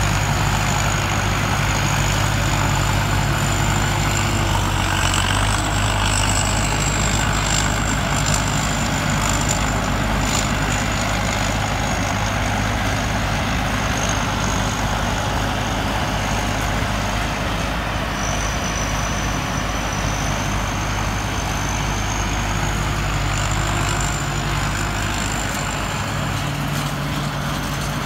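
Sitcharoen tracked rice combine harvester running steadily as it cuts and threshes through standing rice: a steady low engine drone with a thin high whine over it that wavers slightly in pitch.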